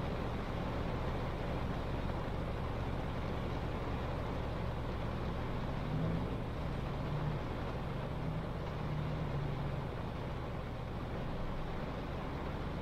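Car driving in heavy rain: a steady hiss of rain and wet-road tyre noise over a low engine and road hum, with a faint wavering hum between about six and ten seconds in.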